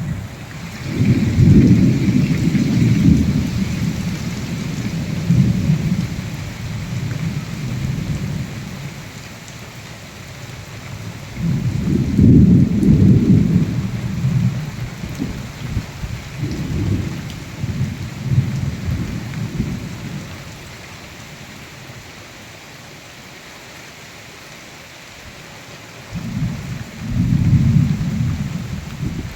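Steady rain hiss in a cyclone rainstorm, with thunder rumbling low several times: a long roll near the start, two more in the middle, and a last one near the end.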